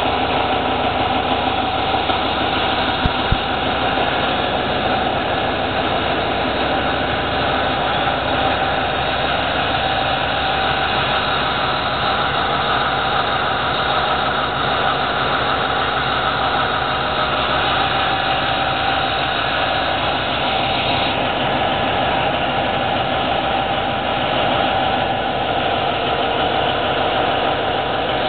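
Caterpillar D399 V16 diesel engine running at a steady speed. A couple of brief clicks come about two and three seconds in.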